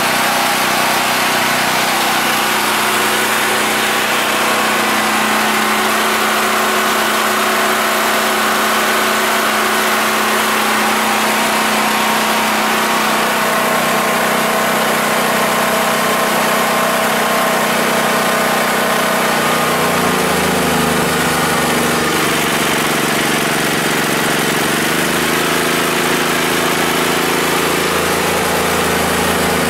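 Yamakoyo SH7000DXE generator's 13 hp single-cylinder engine running steadily on natural gas alone, its flow set by hand through a valve with no gas regulator. About twenty seconds in, its note dips and wavers as electrical load comes on, then settles at a new steady pitch.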